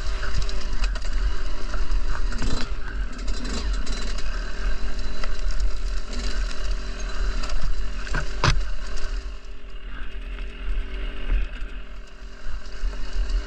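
Dirt bike engine running under changing throttle, with wind rumbling on the microphone and two sharp knocks, about two and a half and eight and a half seconds in. The engine eases off about ten seconds in and picks up again near the end.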